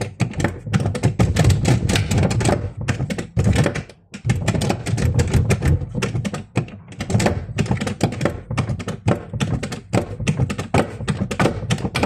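Rapid, irregular tapping and knocking, many sharp clicks a second with dull thuds under them, and a brief lull about four seconds in.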